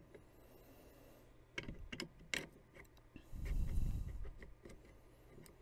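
Steel bolt of a Marlin lever-action rifle being handled and slid into the receiver: a few light metal clicks, then a brief sliding scrape about three and a half seconds in.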